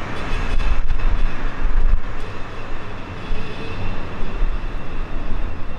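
Low, steady rumble of city traffic, swelling between about one and two seconds in and then easing, as a vehicle passes.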